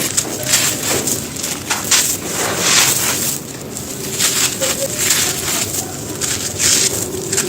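Dry, stony chunks being crushed and crumbled: a run of gritty crunches, one every half second to a second.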